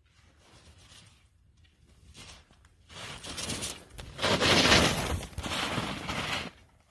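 Skis carving and scraping over snow, building from about three seconds in and loudest as the skier sweeps past close by, then dropping away abruptly near the end.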